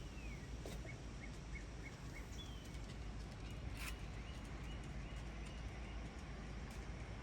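Wind buffeting the microphone with a steady low rumble as a storm builds, while a bird chirps faintly in a string of short high notes and glides. A single sharp click sounds just past halfway.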